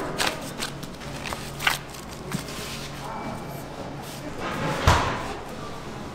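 Kitchen work noises: scattered sharp knocks and light clatter, with one heavy thud just before five seconds in, over a low steady hum.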